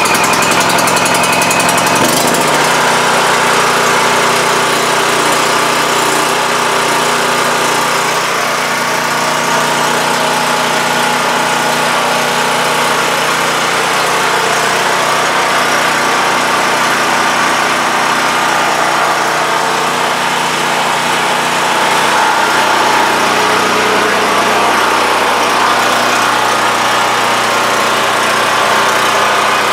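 Champion 4000-watt generator's 196cc single-cylinder engine running steadily just after a cold start on choke. Its sound changes about two seconds in, then holds steady.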